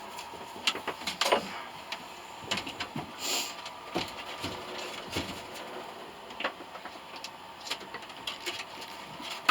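Irregular light knocks, clicks and short scrapes of hard objects being handled, over a faint steady high hum.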